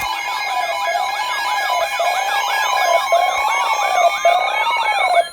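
Several electronic sirens sounding at once: a slow up-and-down wail repeating about once a second under faster yelping sweeps and steady high tones. Near the end one tone starts gliding slowly upward.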